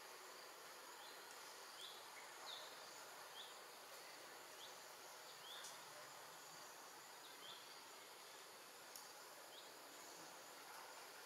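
Faint forest ambience: a steady hiss with a short high chirp repeating about once a second.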